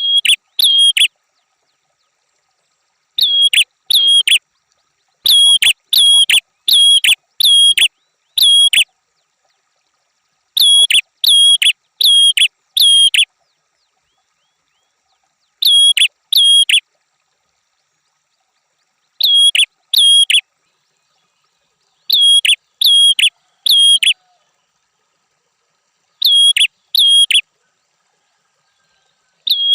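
Prenjak kepala merah (a prinia) singing: loud, sharp, clipped notes given in quick runs of two to five, with pauses of a couple of seconds between runs.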